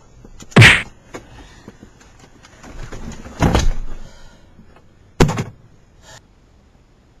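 A series of loud thuds and bangs: a sharp thud about half a second in, a longer clattering bang around three and a half seconds, and another sharp bang a little after five seconds, then a faint knock.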